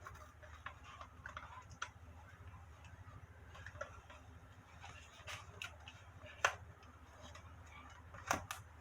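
Scattered light clicks and taps of small objects being handled on a desk, with one sharper tap about six and a half seconds in and two more near the end, over a low steady hum.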